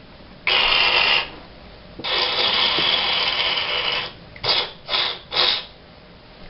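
Kitten hissing: a short hiss, a longer hiss of about two seconds, then three short sharp hisses in quick succession, a defensive warning at the hand held up in front of it.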